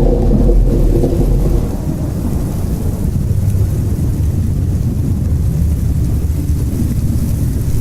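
Horror ambience sound effect: a deep, steady rumble like rolling thunder, with a low droning moan that fades out in the first couple of seconds.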